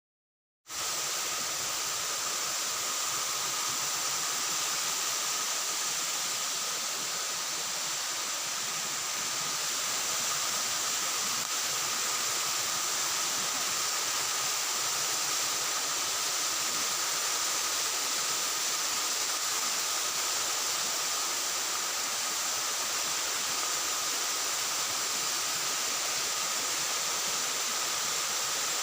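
Steady rushing of flowing water, with two faint, steady high tones running through it.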